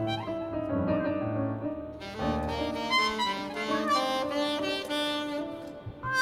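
Free-improvised ensemble music: a saxophone playing short, shifting melodic phrases over keyboard, the notes changing every fraction of a second.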